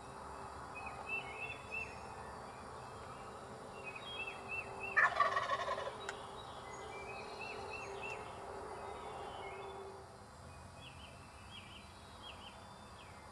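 A wild turkey tom gobbles once, about five seconds in: a loud, rattling call that drops in pitch. A songbird repeats a short, high chirping phrase several times around it.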